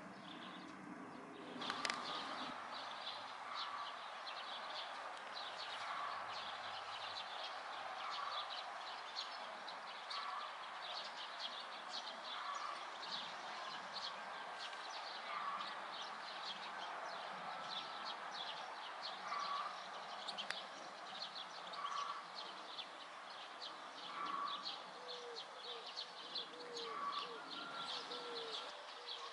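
Garden birdsong: a steady stream of quick, high chirps and twitters, with a short lower call repeated about every two seconds and a few low falling notes near the end.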